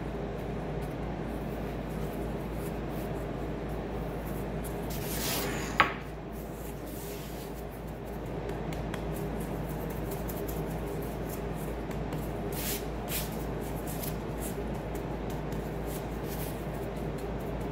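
Plastic-gloved hands rubbing and rolling soft yeast dough into balls, a faint rustle and scrape over a steady background hum, with one sharp click about six seconds in.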